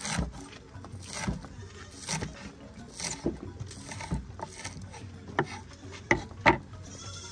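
A spoon or spatula scraping around a cooking pan in a steady stirring rhythm, about one stroke a second, with two sharper scrapes near the end. A goat starts to bleat just at the close.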